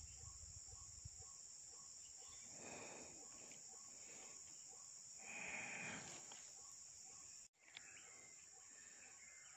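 Faint steady high-pitched drone of insects, with faint regular pips about twice a second and two soft swells of noise about three and five and a half seconds in.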